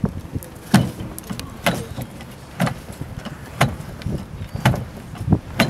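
Wooden cannon carriage being levered forward with handspikes across a wooden platform, a sharp knock about once a second, six in all, as each heave shifts the carriage.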